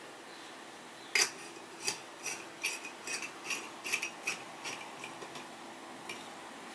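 Small, sharp metallic clicks and clinks, about a dozen over some four seconds, from the parts of a lamp socket being handled and fitted together; the first is the loudest.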